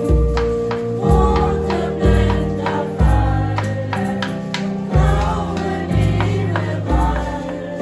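Music with a group of voices singing over instrumental backing, with strong bass notes on a recurring beat.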